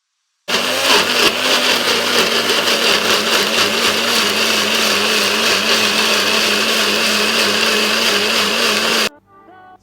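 Electric blender running steadily while blending banana and honey into a paste. It starts about half a second in and cuts off abruptly near the end.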